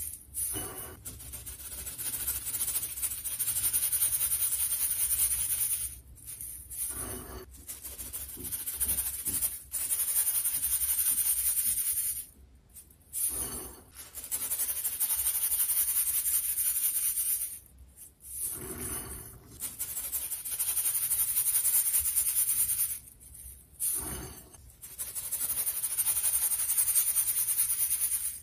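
Crumbled chunks of dyed baking soda being rubbed through a fine wire-mesh sieve, with the powder pouring out in a dry, scratchy hiss. It comes in several passes of a few seconds each, with short pauses between them.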